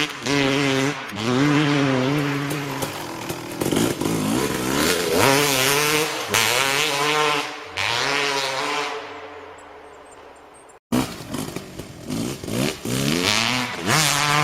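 Honda CR250 two-stroke motocross bike engine revving, its pitch repeatedly rising and falling with the throttle. The sound fades away for a few seconds, breaks off sharply about eleven seconds in, and quick revs start again.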